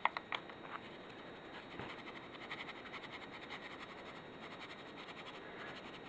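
A few sharp crinkles of a foil ramen seasoning packet, then a faint, rapid, scratchy rustle as the flavoring powder is shaken out over the dry noodle block.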